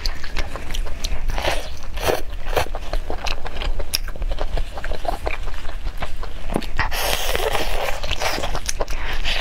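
Close-miked eating sounds: wet chewing, smacking and biting into steamed chicken, a run of short sharp clicks, with a denser crackly rustle about seven seconds in.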